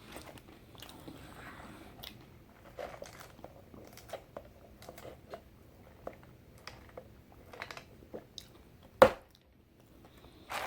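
A man chewing and biting fast food close to the microphone: a scatter of small crunches and clicks, with one sharp knock about nine seconds in.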